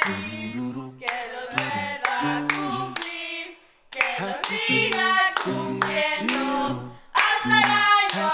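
Music with singing over a steady clapping beat and low bass notes; it drops out briefly about three and a half seconds in.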